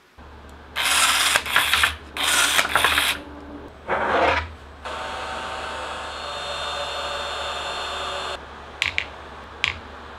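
Handheld rotary tool cutting into a dried ginseng root in several loud, hissy bursts, then running steadily with a whine for about three and a half seconds. Near the end come two sharp clicks, metal tweezers against a glass dish.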